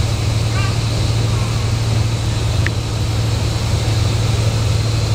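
Steady low drone of a moving tour bus heard from inside the cabin: engine and road noise, with one small tick about two and a half seconds in.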